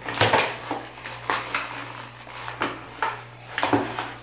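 A thin clear plastic bag crinkling and rustling in irregular bursts as it is pulled open by hand to get a small toy out.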